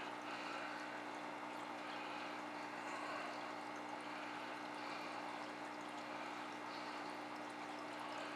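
Aquarium water trickling and splashing steadily, as from a filter return or air bubbling at the surface, over a constant low electric hum from a pump.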